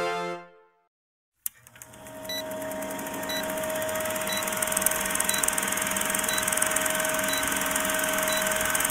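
Old-film countdown leader sound effect: a crackling hiss with a steady tone under it and a short beep once a second as the numbers count down. It starts with a click about a second and a half in, after the tail of a logo jingle fades out.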